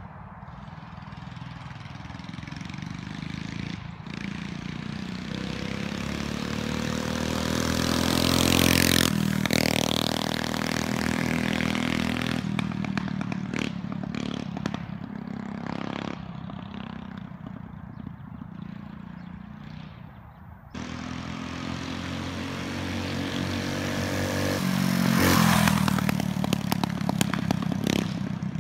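Built Motovox mini bike's Predator 212 single-cylinder four-stroke engine passing by at speed: it grows louder to a peak about nine seconds in, drops in pitch as it goes past, and fades away. After a sudden jump about two-thirds through, it approaches again and is loudest near the end.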